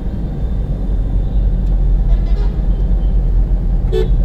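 Steady low rumble of a car's engine and road noise, heard inside the cabin as it drives slowly through a flooded street. A short horn toot sounds near the end.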